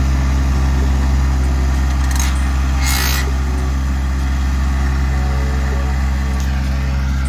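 Compact tractor engine running steadily, with two short bursts of hiss about two and three seconds in.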